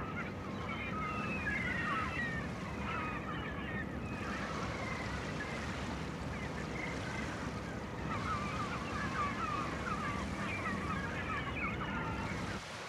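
A flock of birds calling and squawking over each other against a steady rush of surf, the calls thinning for a few seconds in the middle. The sound cuts off abruptly just before the end.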